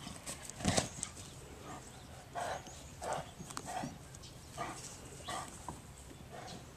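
Great Dane moving about on grass: a thump under a second in, then a string of soft footfall thuds about every two-thirds of a second as it trots.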